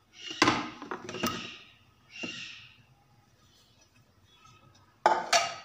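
Aluminium pudding mould knocking and scraping against a plate as it is turned out, with two sharp knocks in the first second and a half and a shorter scrape at about two seconds. A loud, sudden clatter follows near the end.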